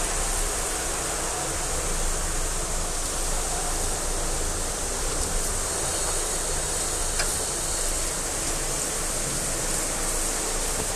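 Handheld shower head spraying water onto a dog's wet fur: a steady hiss of running water, with one faint click about seven seconds in.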